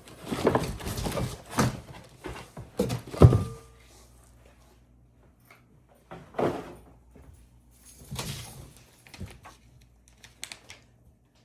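Clatter and knocks of boxed table-saw stand parts being handled and set down, busiest at first, with one loud knock about three seconds in that leaves a short ring, then a few scattered knocks.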